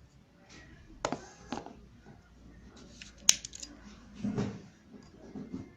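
Sharp clicks from a desoldering iron's spring-loaded suction plunger being cocked and released to suck up molten solder, the loudest about three seconds in, with a few duller handling knocks.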